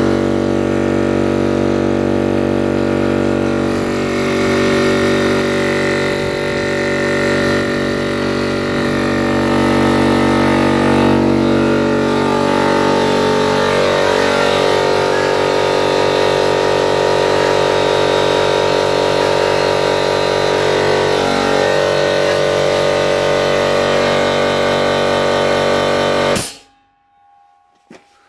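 A 50-litre oil-lubricated air compressor's electric motor and pump running steadily as they fill the tank, then cutting off suddenly near the end.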